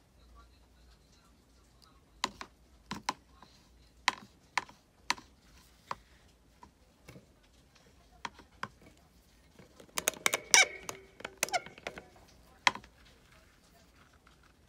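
Light, scattered clicks and taps as painting tools and paper are handled on a tabletop, with a quick cluster of clattering clicks about ten seconds in.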